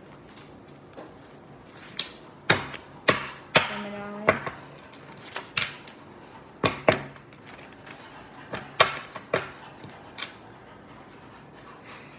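A string of about a dozen sharp knocks and clicks on a hard surface, irregularly spaced half a second to a second apart, with one short spoken word in among them.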